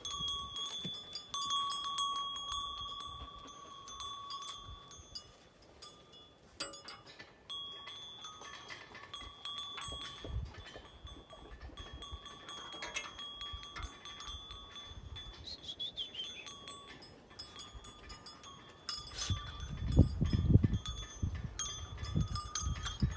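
Tinkling, bell-like chiming with two steady ringing tones held through most of the stretch. About three-quarters of the way in comes a burst of low rumbling thumps, the loudest part.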